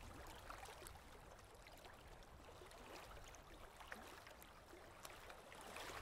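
Faint lapping and trickling of river water at the surface, with small scattered ticks.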